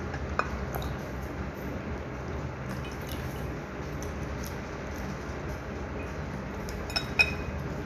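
Wooden chopsticks and fingers handling food in a ceramic bowl: a few light clicks and taps, the two sharpest close together near the end, over a steady low hum.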